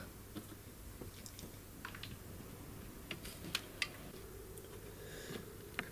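A handful of faint clicks and taps as a removed windscreen wiper arm is handled and laid down on the windscreen and plastic cowl.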